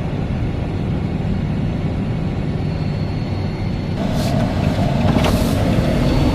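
Steady rumble of a vehicle driving, heard from inside, growing a little louder about two-thirds of the way through, with two brief hisses near the end.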